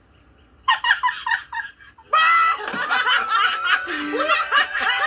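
Cartoon characters laughing in short quick bursts, starting about a second in. From about two seconds in, music comes up under further laughter.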